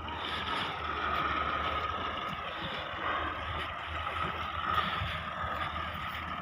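Heavy machinery engines running steadily, a low drone with a steady high-pitched whine over it.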